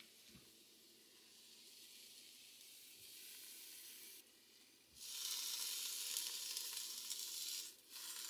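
Bacon-wrapped sirloin steak sizzling as it is laid in the hot, preheated air fryer basket: the meat is already searing on contact. The faint hiss gets louder from about five seconds in.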